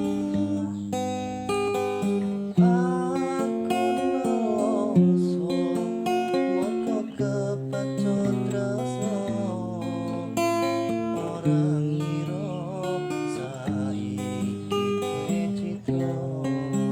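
Music played on a plucked string instrument, with notes and strummed chords changing every second or so.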